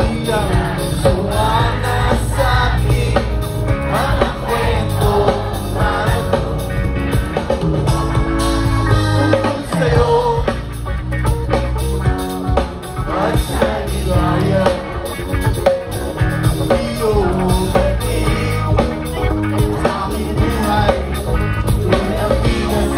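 Rock band playing live on a concert stage: a singer over drums and electric guitar, steady and loud.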